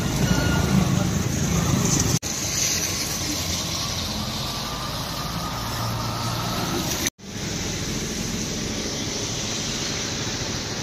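A motorcycle engine riding through shallow floodwater, with the hiss of splashing water, then steady road traffic noise. The sound drops out briefly twice.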